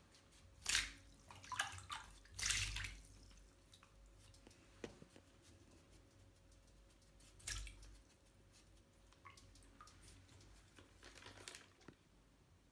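Shallow bathwater in a tub splashing and dripping in short bursts as a wet ferret moves through it. There is a cluster of splashes in the first few seconds, and single ones about halfway through and near the end.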